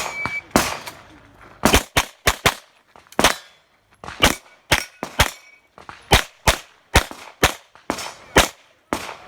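Handgun fired in a string of about sixteen shots, many of them in quick pairs with uneven pauses between: a practical-shooting stage run, engaging targets with double taps.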